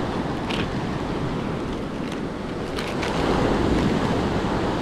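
Ocean surf breaking and washing up on a sandy beach, with wind rumbling on the microphone; the wash grows a little louder about three seconds in.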